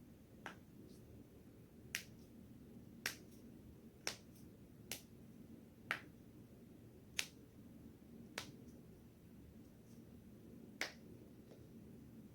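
Joints being cracked by hand: about nine sharp, separate pops, roughly a second apart, with a longer pause before the last one.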